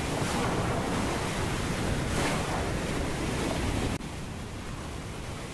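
Ocean surf and wind: a steady rush of waves that swells and eases, dropping suddenly to a quieter level about four seconds in.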